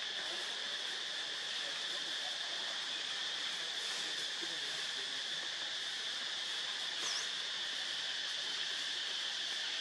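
A steady high-pitched insect drone over a constant background hiss, with one brief high chirp about seven seconds in.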